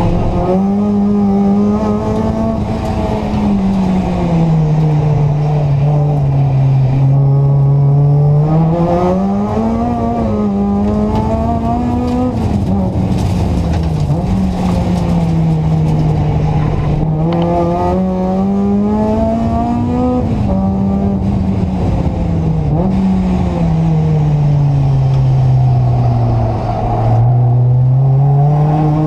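Seventh-generation Honda Civic hatchback's four-cylinder petrol engine heard from inside the cabin while being driven hard on track. Its note keeps climbing under acceleration and sinking as the car slows for corners, with a quick dip about two-thirds of the way through.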